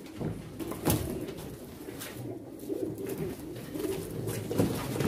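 Domestic pigeons cooing, a low warbling that goes on throughout, with a couple of brief sharp knocks, one about a second in and one near the end.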